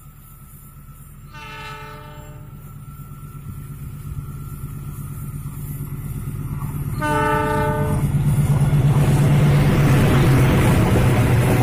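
A CC206 diesel-electric locomotive hauling a passenger train approaches and sounds its horn twice, each blast about a second long and the second about six seconds after the first. Its engine grows steadily louder, and over the last few seconds the locomotive passes close by with loud engine and wheel-on-rail noise.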